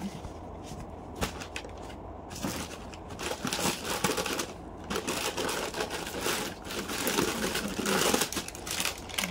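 Plastic shopping bag rustling and crinkling as clothes are pulled out and handled, with scattered crackles at first and denser rustling from about two and a half seconds in.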